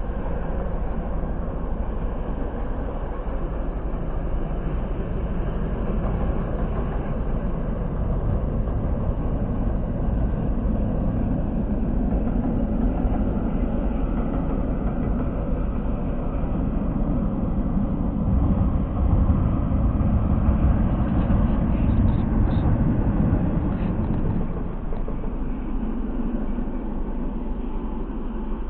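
A train crossing a steel truss railway bridge: a steady low rumble that grows somewhat louder past the middle, then eases off.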